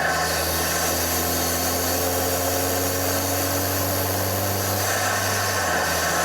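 BMW F30 328i's N20 turbocharged four-cylinder engine running steadily while the car is driven, its pitch climbing slowly.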